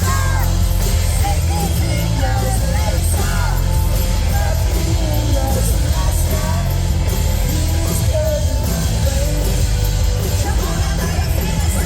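Live indie rock band playing at full volume, with singing over heavy drums and bass.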